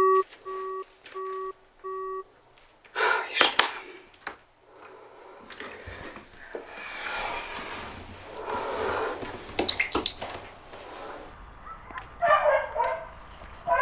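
A phone's busy tone beeping about three more times and stopping two seconds in. Sharp knocks of objects set down on a bathtub edge follow, then water splashing and dripping. Near the end a steady high-pitched trill starts, with a short run of chirps.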